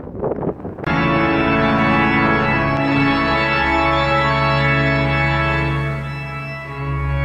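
Wind buffeting the microphone, cut off abruptly about a second in by sustained organ chords. The chords hold steady, change once about three seconds in, and dip briefly near the end.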